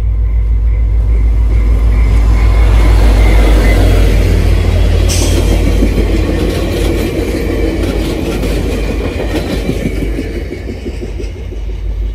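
VIA Rail passenger train passing close by: a loud rumble that peaks a few seconds in, then the wheels of the stainless-steel coaches clatter rhythmically over the rail joints, easing off near the end as the train moves away.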